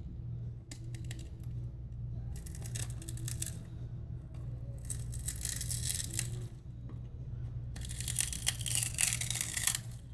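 Glued screen of a Samsung Galaxy Note 4 being pried off the phone's chassis: the adhesive tears and the broken glass crackles in four scratchy bursts of a second or two each, over a steady low hum.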